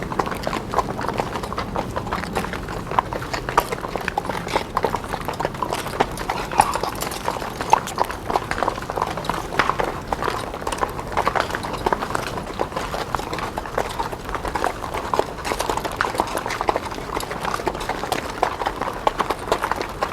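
Horses' hooves clip-clopping on a cobblestone road, many irregular hoof strikes overlapping, over a steady low rumble.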